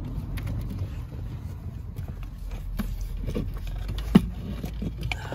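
Small clicks and taps of plastic parts being handled as a BMW E90's fuel pump and filter module and its fuel line connectors are worked on by hand. One sharp click about four seconds in is the loudest, over a steady low rumble.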